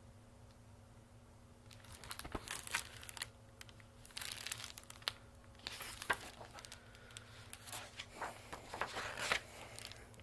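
Near silence, then from about two seconds in, irregular crinkling and rustling as the pages of a picture book are turned and handled.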